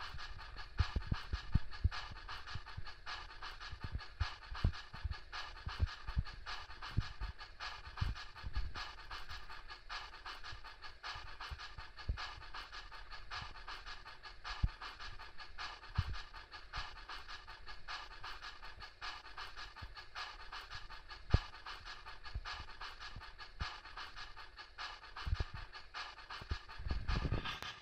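MTH HO-scale Union Pacific 9000 4-12-2 steam locomotive model running on rollers, its onboard sound system giving a steady run of rhythmic steam chuffs. Scattered low knocks come through, and there is a louder low rumble near the end.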